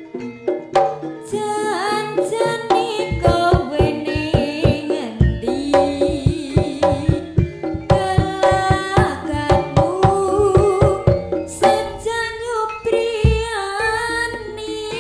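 Javanese jaranan ensemble playing: hand drums beat a quick, even rhythm that enters about three seconds in, under pitched melodic percussion and a wavering melody line.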